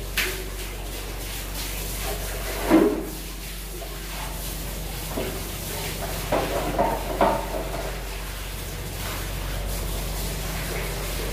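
Water spraying from a garden hose onto the wooden planks inside a boat hull, a steady hiss over a low steady hum, with a few knocks and thumps of scrubbing against the boards, the loudest about three seconds in and a cluster a few seconds later.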